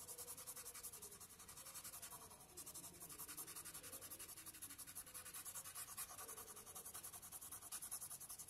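Coloured pencil scratching on paper in quick, even strokes, about six a second, faint.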